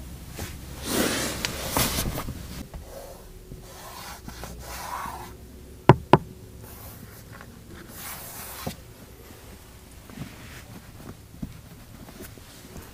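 Hands rubbing and handling a car's interior trim and leather seats, with a scattering of light knocks. Two sharp clicks come close together about six seconds in.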